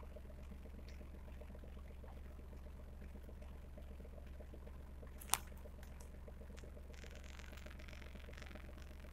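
A steady low hum, with one sharp click about five seconds in and a short crackling rustle near the end.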